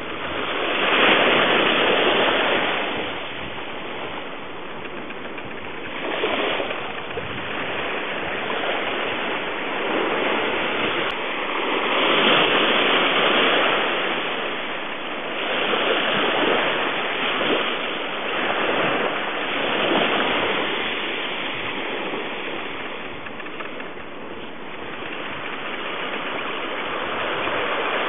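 Ocean surf washing onto a beach, a steady rush that swells and fades every few seconds.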